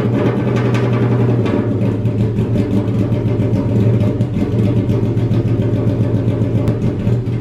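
Honda Civic EF hatchback's engine running loud and steady at a constant speed through a homemade straight-pipe exhaust with no muffler.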